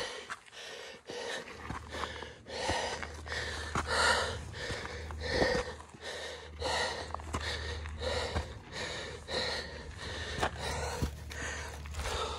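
Heavy, rhythmic panting of a hiker close to the microphone, about three breaths every two seconds: hard breathing from the effort of climbing a steep trail.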